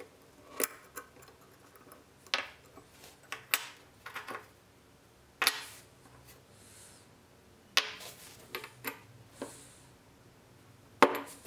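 Metal parts of a spokeshave (cap, blade and body) clicking and clinking as they are taken apart and set down on a wooden workbench. About a dozen separate sharp clicks and clacks come at uneven intervals, some with a short metallic ring.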